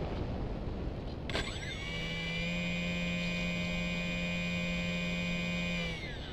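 The ParkZone Radian's electric motor spinning up on the throttle with no propeller on its shaft, a clean steady high whine held for about four seconds, then falling in pitch as it winds down near the end. A click comes just before it starts, and wind rushes over the microphone before it.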